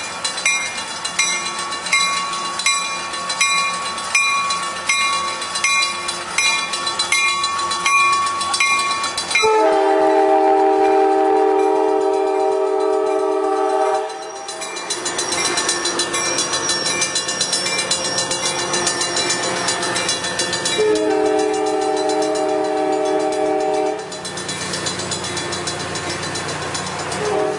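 Coaster commuter train passing through a grade crossing: a warning bell clangs steadily, about one and a half strikes a second. About nine seconds in, the train's multi-tone air horn sounds one long blast, then the cars rumble by, and a second, shorter horn blast comes near the end.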